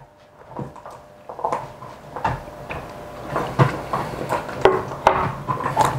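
Bourbon being sipped neat from tasting glasses: small slurps, lip smacks and throaty hums, mixed with short knocks and clinks of a glass being set down on a wooden tray.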